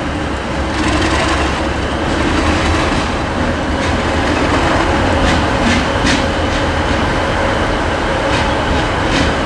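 Class 37 diesel locomotive with an English Electric V12 engine, running light engine as it pulls away: a steady engine drone with its wheels clicking over rail joints several times.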